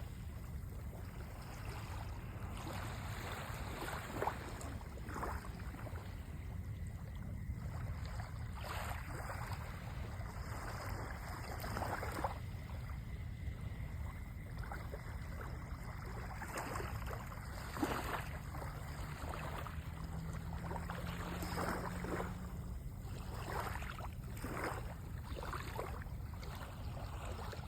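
Seaside water ambience: water lapping and splashing in irregular surges over a steady low wind rumble on the microphone.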